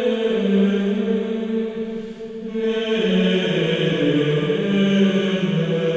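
Background music: a slow sung chant, with voices holding long notes that move to a new pitch every second or two.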